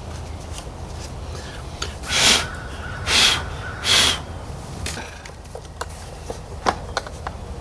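Three short sprays from an aerosol can of contact cleaner, about two, three and four seconds in, then a few light clicks.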